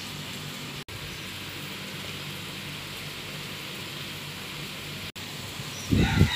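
Steady hiss of outdoor background noise with a faint low hum, cut off for an instant twice. Near the end come a few loud low thumps, and a rooster starts crowing.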